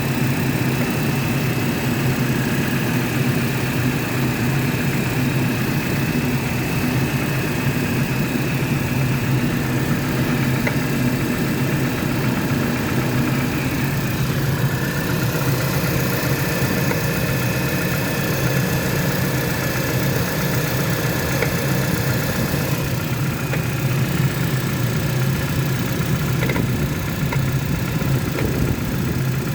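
Renault Kaptur 2.0 four-cylinder petrol engine idling steadily soon after a cold start, with a few faint ticks. The owner hears an intermittent noise under the hood, between a squeak and a light tapping at irregular intervals, that appears about thirty seconds after starting and fades as the engine warms.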